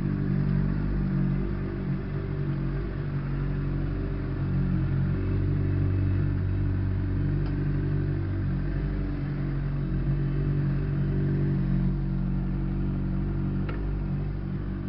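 Honda CBR600RR inline-four engine running steadily at low revs while the motorcycle rolls slowly.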